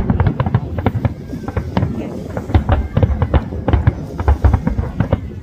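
Fireworks bursting in a rapid, irregular string of sharp bangs, several a second, with music playing underneath.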